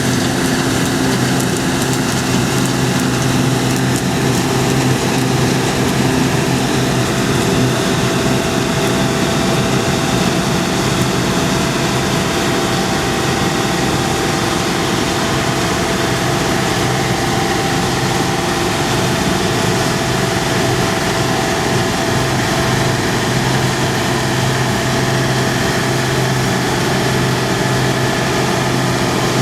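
Farm machinery's diesel engine running steadily, a constant engine hum over a broad even rush of machine noise.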